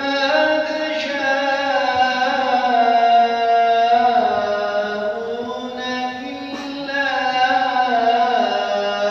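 A man's solo voice chanting a mihrabiye, a Turkish Islamic hymn, unaccompanied, in long held notes with slow ornamented turns of pitch, stepping lower near the end.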